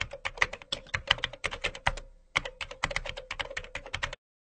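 Rapid typing on a computer keyboard: a quick run of key clicks, with a short pause about two seconds in, stopping abruptly just before the end.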